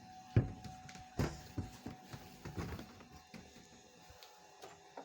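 A series of knocks and thuds in a small room: two sharp, louder ones in the first second and a half, then fainter scattered taps that die away, over a faint steady hum.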